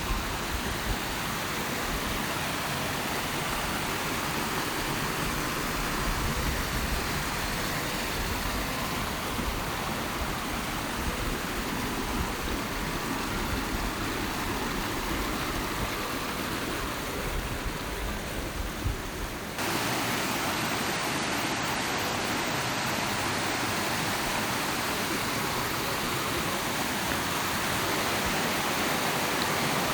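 Steady rush of water from a stream or waterfall tumbling over rocks. A gusty low rumble lies under it at first and drops away abruptly about two-thirds through, where the water sound becomes slightly louder and more even.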